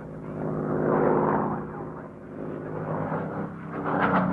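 Rolls-Royce Merlin V12 engine of a Hawker Hurricane fighter flying overhead: a steady drone that swells about a second in, eases, and swells again near the end.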